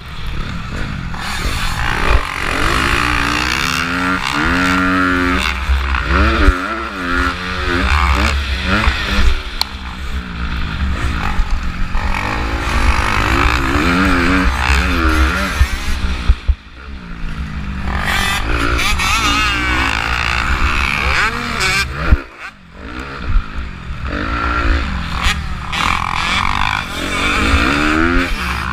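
2015 Honda CRF250R's single-cylinder four-stroke motocross engine at race pace, revving up and down in quick swells as the rider works the throttle through corners and jumps. The throttle drops off briefly twice, about 16 and 22 seconds in, before the engine revs up again.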